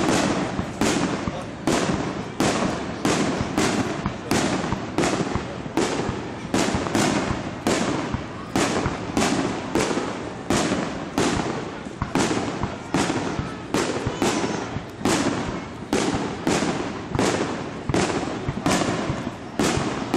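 Aerial firework shells bursting in quick, unbroken succession, about two sharp bangs a second, each dying away briefly before the next.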